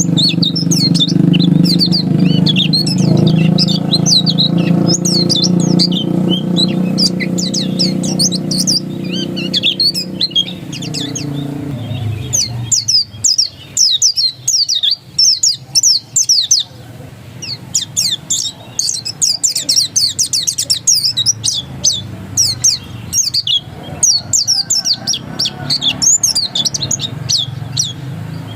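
Pleci dakun white-eye singing its rapid, insistent 'ngotot' song: fast high chirps and twittering trills, with short pauses between bursts. A steady low hum runs underneath and stops about twelve seconds in.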